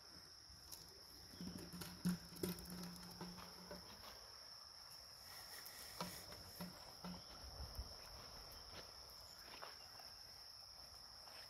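Crickets or other insects trilling in a steady high thin drone, with soft footsteps on grass and ground. A low hum comes in for about two seconds not long after the start.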